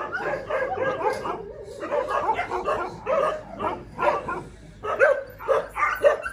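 Many shelter dogs barking and yipping at once, a steady chorus of short, overlapping barks.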